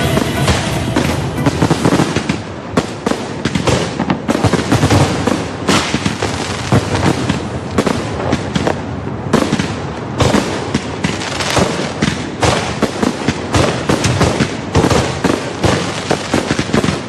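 Fireworks display: a dense, continuous barrage of bangs and crackles, many shells bursting close together.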